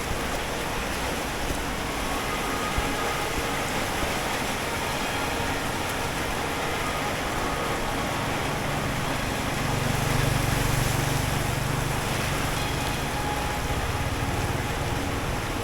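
Street traffic on wet pavement: a steady hiss of passing vehicles, with one engine growing louder about ten seconds in, then fading.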